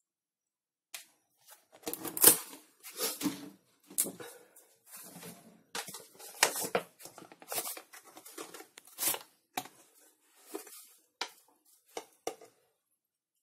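A spoon scraping and clattering against an aluminium frying pan as crab pieces are stirred, in irregular strokes with short pauses. The strokes thin out near the end.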